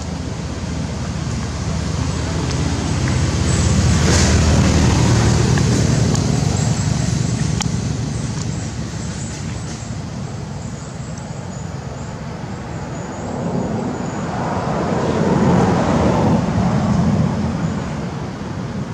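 Road traffic: a low rumble that swells and fades as vehicles pass, twice.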